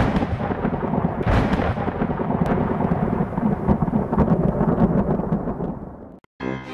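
Thunder sound effect: a loud rolling rumble with a couple of sharp cracks in its first seconds, slowly fading away near the end.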